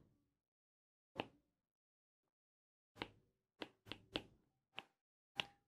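Faint, irregular ticks of a stylus tapping and stroking on a writing tablet while a word is handwritten, about seven light clicks over a few seconds in near silence.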